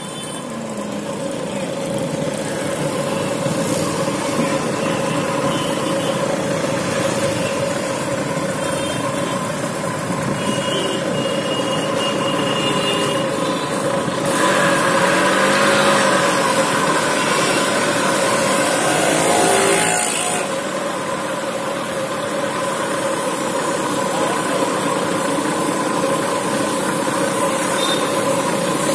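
Street traffic: motorbike and car engines running with a steady hum, and a vehicle passing close and louder about halfway through.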